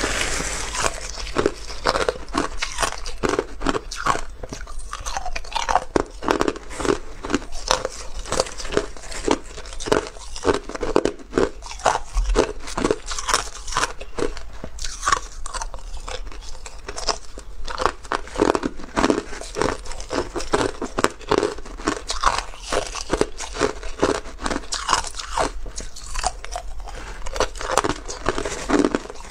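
Crushed clear ice being bitten and chewed: a continuous run of sharp, irregular crunches, several a second.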